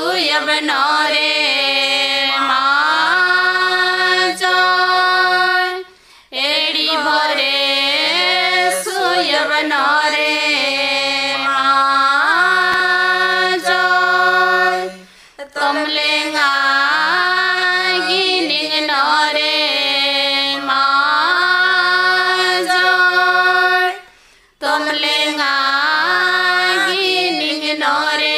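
Khadia durang folk song sung by female voices in long melodic phrases over low sustained accompanying notes, with a brief break about every nine seconds.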